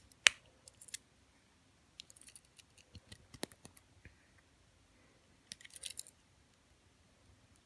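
Metal tools of a small Swiss Army-style pocketknife clicking and scraping in short bursts as a stiff tool, the sewing awl, is pried at with a fingernail and will not come out. One sharp click near the start is the loudest.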